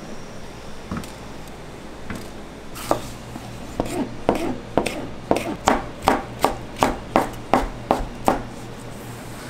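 Knife chopping on a cutting board: a few scattered knocks, then from about four seconds in a steady run of cuts, two or three a second, stopping near the end.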